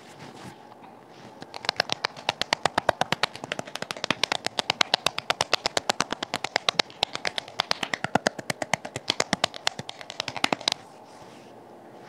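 Rapid patting of fingers and palms on the face and neck during a skin massage: a fast, even run of light slaps, about eight to ten a second. It starts about a second and a half in and stops shortly before the end.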